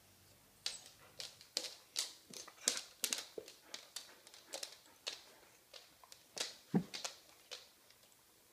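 Dogs' claws clicking and scrabbling irregularly on a hard, smooth floor as a large dark dog and a small terrier-type dog move around each other, with one louder, deeper sound about seven seconds in.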